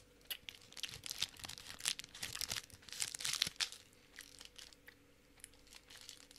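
Plastic snack wrapper crinkling and rustling in someone's hands, dense for the first three and a half seconds, then thinning to scattered faint crackles.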